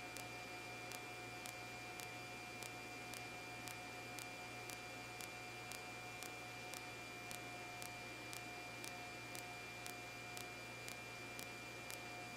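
Faint steady electrical hum and hiss on a police helicopter's radio audio feed between transmissions, with a light tick repeating about twice a second.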